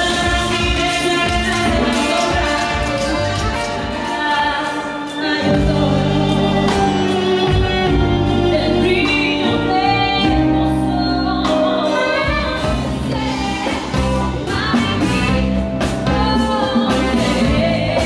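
Women singing lead and backing vocals over a band, with a bass-heavy groove that comes in about five seconds in.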